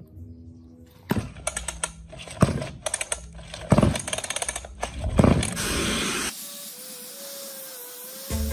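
Pull starter of a small pocket-bike engine yanked three times, each pull a loud rasp with a run of rapid ratchet clicks as the engine turns over; it does not catch. A steady whir follows near the end.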